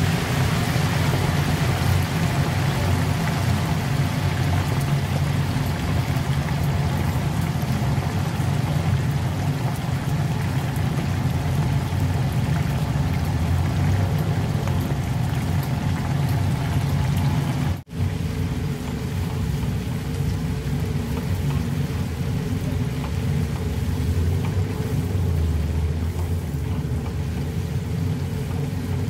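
Hot oil in a commercial deep fryer bubbling and sizzling hard around a submerged wire strainer basket, a steady crackling hiss over a steady low hum. The sound drops out for an instant about two-thirds of the way through.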